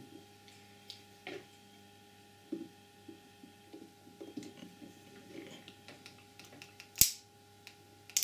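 Long-nose pliers scraping and clicking faintly against the plastic case of an Apple MagSafe power adapter as it is prised apart. About seven seconds in comes one sharp snap: a case catch giving way.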